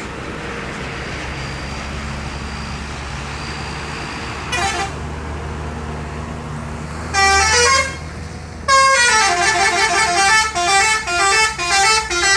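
Bus telolet horn: after engine and road noise, a short toot, then a longer blast, then a fast tune of notes that step up and down, about two notes a second.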